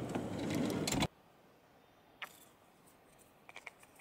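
A van's sliding side door pulled open, a rumbling slide along its track that stops abruptly about a second in; after that a sharp click and a few light clicks and rustles as things are handled inside the van.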